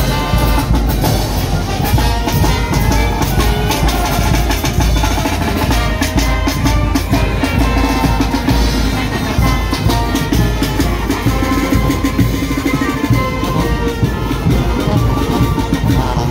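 Marching brass band playing, with sousaphones, saxophones and trumpets over a steady bass-drum beat.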